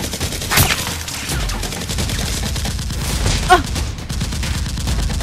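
Rapid-fire gunfire sound effect: a dense, continuous volley of shots, with louder bangs about half a second in and again about three and a half seconds in.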